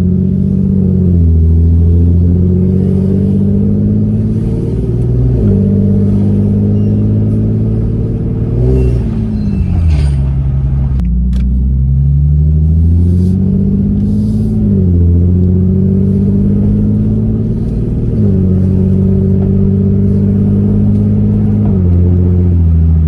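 Infiniti G37's 3.7-litre V6 pulling through the gears, heard from the cabin with the window down. Its pitch climbs and then drops at each shift, several times. The exhaust has a leak, which the shop traced to the flex pipe and the mid pipe.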